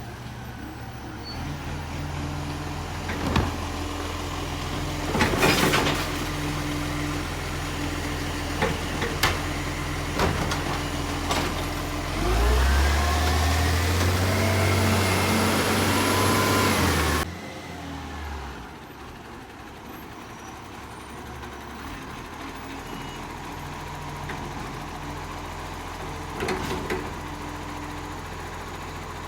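Garbage truck's diesel engine idling, with a few short knocks. About midway it revs up for roughly five seconds under a loud hiss, then drops back to idle.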